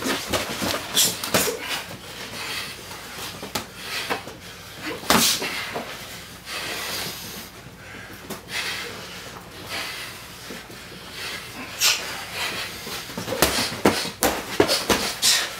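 Boxing gloves smacking in a sparring exchange: sharp, irregular punch impacts, with a quick run of blows near the end, over the boxers' breathing and shoes scuffing on the floor.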